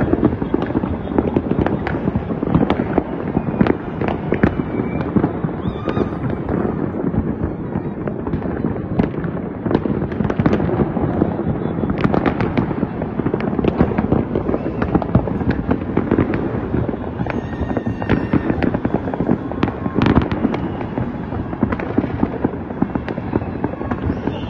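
Fireworks going off all over a city at once: a continuous dense crackle of many overlapping bangs and pops, with a few louder single bangs standing out now and then.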